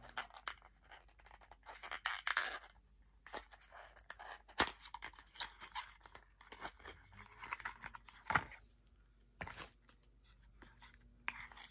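Small cardboard serum box being handled and opened by hand: the end flap is pulled out, making on-and-off scraping and rustling of the card, with several sharp clicks.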